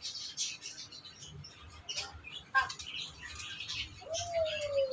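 Small birds chirping, with a sharp click a little past halfway and one long falling call near the end.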